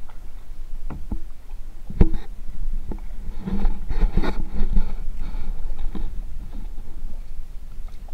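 Kayak paddling: a double-bladed paddle stroking through the water, with sharp knocks and clicks against the plastic hull, busiest from about two seconds to five seconds in, over a steady low rumble.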